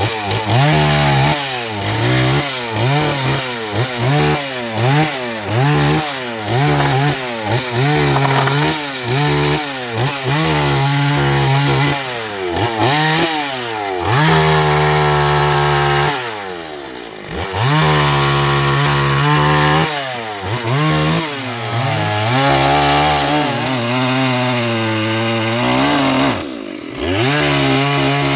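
Two-stroke chainsaw cutting fallen tree wood. The engine pitch rises and falls over and over as the chain takes the cut, then holds longer steady full-throttle runs, dropping back briefly twice.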